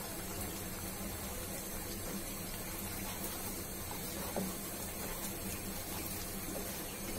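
Eggs frying in hot oil in a nonstick wok: a steady, quiet sizzle, with a plastic slotted spatula lightly scraping as it breaks up and stirs the eggs.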